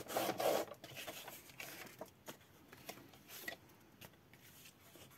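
Sliding-blade paper trimmer cutting cardstock in one quick stroke at the start, followed by faint rustling and light taps of card pieces being handled.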